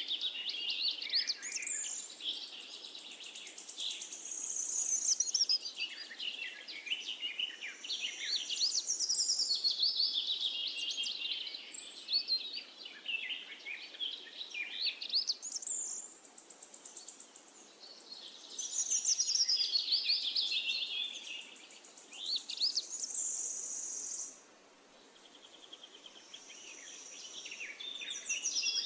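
Birdsong: several birds chirping and trilling at once, with quick falling trills and some high, held whistles. It thins out briefly about three-quarters of the way through, then picks up again.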